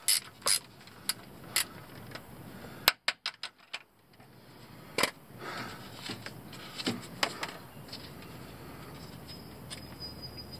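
Scattered metallic clicks and clinks of a socket wrench with an extension working on a truck's front differential plug, with a quick run of clicks about three seconds in.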